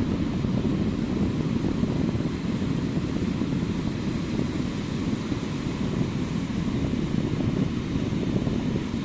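Steady low rumble of ocean surf breaking on a sandy beach, with wind buffeting the microphone; no single waves stand out.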